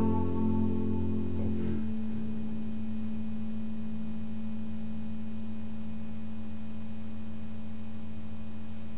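Final chord of an electric guitar and electric bass left ringing. The higher notes fade within about two seconds, and the low notes hold steady at an even level.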